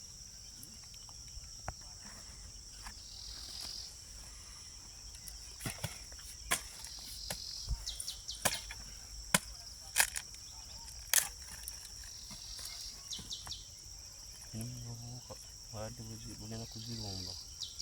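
Steady high-pitched chirring of crickets or similar insects, with scattered sharp clicks and knocks in the middle and faint talk near the end.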